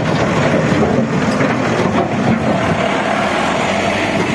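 Caterpillar wheel loader's diesel engine running steadily, heard up close.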